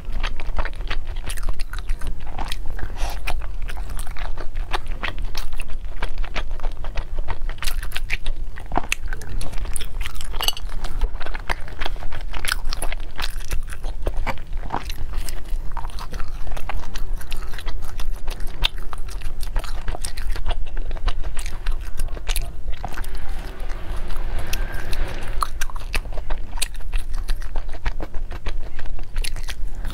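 Close-miked eating: chewing a soft steamed dumpling, then crisp crunching bites and chewing of a flaky pastry with a sesame-crusted edge, with many small crackles.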